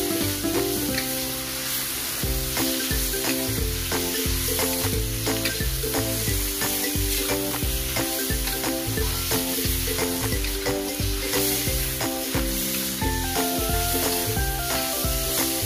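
Sliced chayote sizzling in hot oil in a steel wok, with a metal spatula scraping and turning it. Background music with a steady beat plays along.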